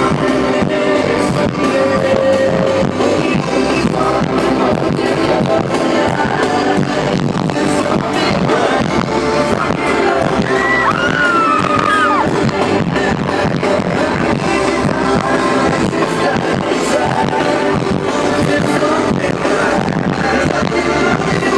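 Loud amplified music with a steady beat and some singing.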